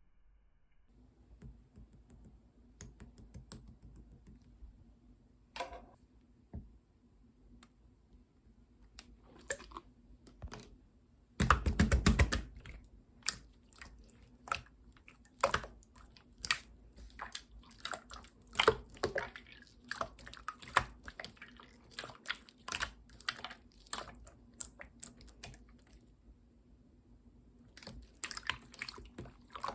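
Gold and green pearl slime being squished and folded by hand, making an irregular stream of small wet clicks and pops, with a louder dense crackling burst about a third of the way in.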